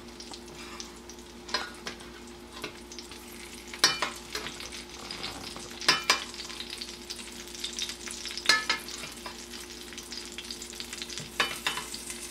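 Salmon fillet sizzling steadily in hot fat in a stainless steel pan while being basted, with a metal spoon scraping and clinking against the pan every couple of seconds.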